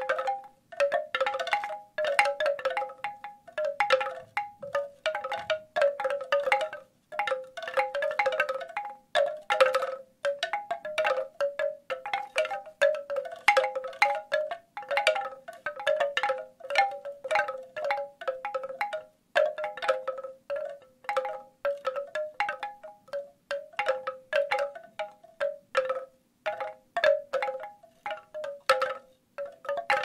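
Wooden bamboo wind chimes being knocked by their clappers in an irregular stream, a few strikes a second, each note ringing only briefly.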